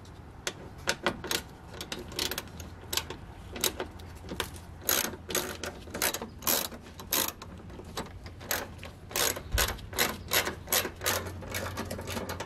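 Hand ratchet clicking in short, uneven runs as it backs out a bolt from the fender liner under the truck's front bumper.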